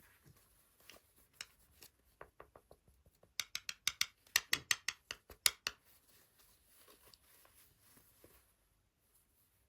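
Close-up handling of blind-bag toy packaging: scattered sharp clicks and crackles that come thick and fast for about two seconds in the middle, then soft scratching and rustling that fades near the end.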